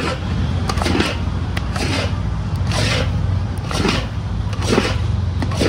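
Spatula scraping around a large metal wok while stirring thick, sticky sweet paste, one rough stroke about every second, over a steady low hum.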